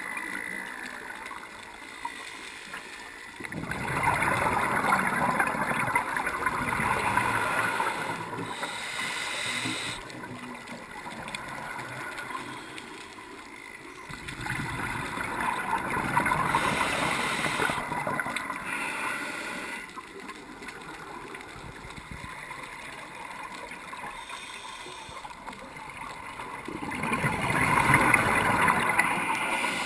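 Underwater, a scuba diver's regulator exhales in three long bubbling rushes, each lasting several seconds, with quieter stretches between breaths.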